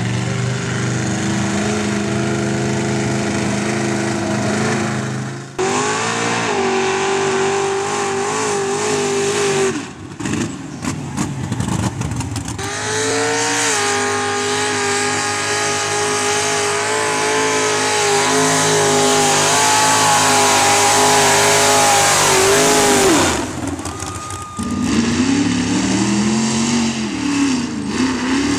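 Engines of lifted mud-run trucks on giant tires revving hard at full throttle through dirt and mud. The engine note is held high for several seconds at a time and swells and drops between runs, with sudden breaks where one truck's run gives way to the next.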